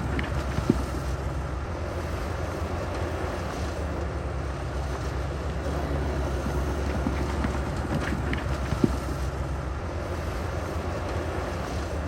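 Heavy diesel earthmoving machinery running steadily with a deep engine rumble. Two sharp knocks stand out, one just under a second in and one about three-quarters of the way through.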